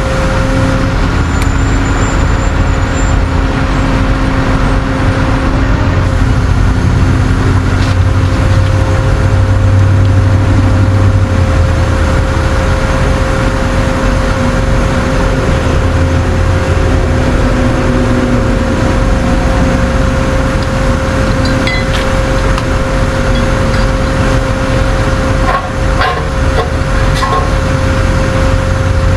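Tow truck's engine running steadily, with a constant whine held over it and the low engine note rising and easing a little at times.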